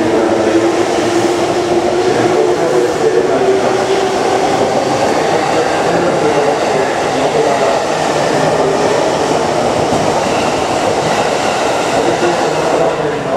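A JR East E233-3000 series electric commuter train pulling out and picking up speed, its cars passing close by with a loud, steady run of wheel and motor noise. The motor whine rises a little in pitch over the first few seconds.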